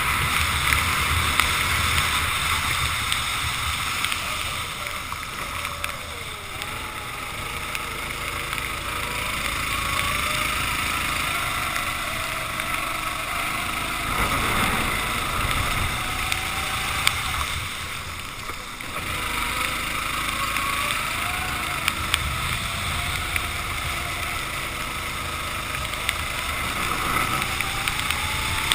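Racing kart engine revving up and down, its pitch rising and falling again and again. Under it is a steady hiss of wind and wet-track spray, and the engine drops away briefly about two-thirds of the way in.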